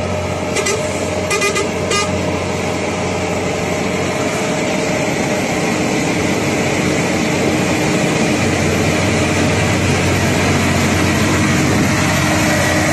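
Volvo FH truck's diesel engine running under the heavy load of a bulldozer on a lowboy trailer, with tyre and road noise, growing slowly louder as the truck comes close. A few short clicks sound in the first two seconds.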